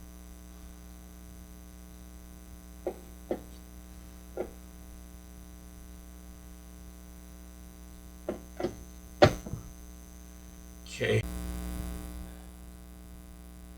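A steady electrical mains hum, with a handful of short clicks and knocks from handling the radio's parts, the loudest about nine seconds in.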